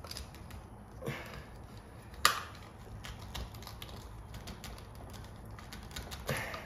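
Scattered small clicks and scrapes of a screwdriver and a plastic ceiling-fan light kit being adjusted and seated on the fan's switch housing, with one sharp click about two seconds in.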